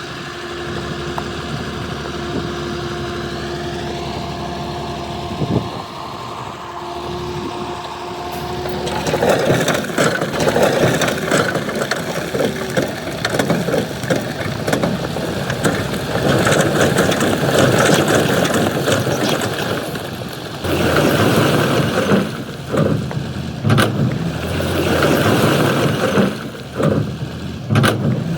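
Heavy earthmoving machine's diesel engine running, steady with a held whine for the first nine seconds or so, then louder and rougher with rises and dips.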